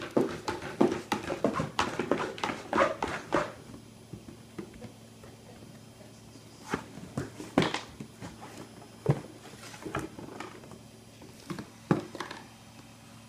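Kuvasz puppy at play: a flurry of scuffling and clicking for about three seconds, then scattered single knocks and taps.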